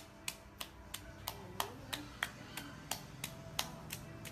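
Sharp knocks at a steady pace of about three a second, the rhythmic striking of food preparation in a kitchen.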